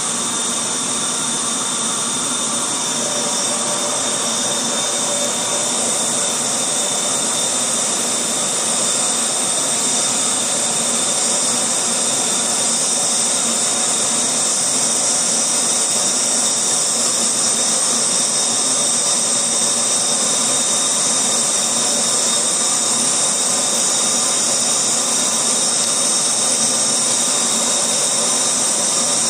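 GCC Spirit GX CO2 laser engraver running while it engraves line work into a wood plate: a steady hiss with a constant high whine, unbroken throughout.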